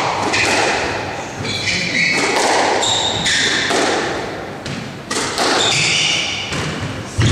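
Squash rally: sharp knocks of the ball struck by rackets and hitting the walls, echoing in the court, with short high squeaks of the players' shoes on the wooden floor.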